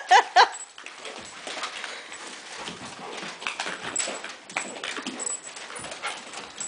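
Excited dog whimpering, with a few loud, high, bending whines in the first half-second, then quieter scuffling with light clicks as it noses among plastic ball-pit balls.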